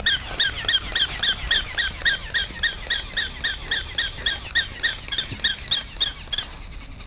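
Battery-powered toy West Highland White Terrier's electronic yapping: a short, high, squeaky yap repeated evenly about four times a second, which cuts off abruptly near the end.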